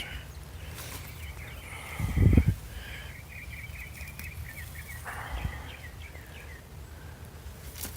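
A songbird singing a long, fast warbling trill, with a brief low thump about two seconds in.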